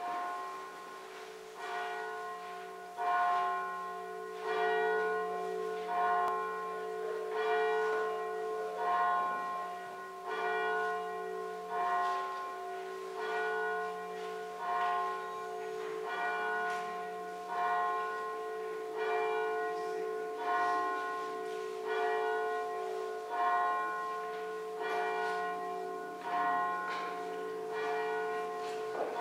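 A single church bell ringing steadily, struck about once every second and a half, each stroke ringing on under the next.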